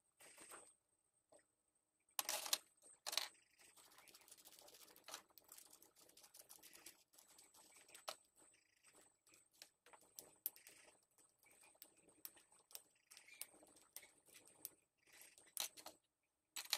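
Faint rubbing and rustling of a cloth wiping a torch's metal lens bezel, with small scattered clicks of metal parts being handled. The louder rustling comes about two seconds in.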